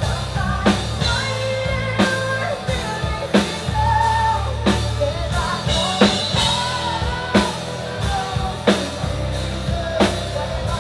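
Rock music with a sung vocal line over drums. A heavy drum hit lands about every 1.3 seconds.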